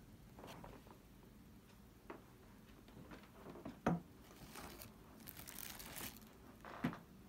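Plastic food packaging crinkling as a bagged loaf of bread and a clear plastic food container are handled, with a few light knocks; the sharpest knock comes about 4 seconds in, followed by a couple of seconds of rustling.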